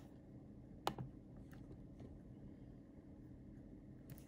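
A few scattered keystrokes on a laptop keyboard, typing a chat message: one sharp click about a second in, a fainter one soon after, and a few more near the end, over a faint room hum.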